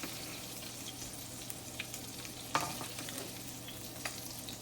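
Meatballs frying in hot grease in a pan, a steady sizzle with small crackles, and a light knock about two and a half seconds in.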